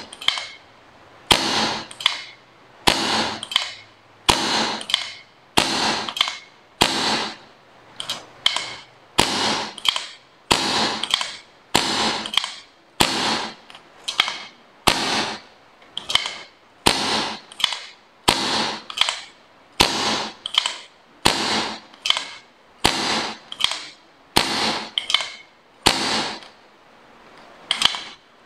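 Hand air pump being stroked to charge a homemade PCP air gun's fire-extinguisher cylinder with air. The pump strokes repeat steadily, a louder one about every second and a half with weaker ones between, each a sharp click followed by a short hiss of air.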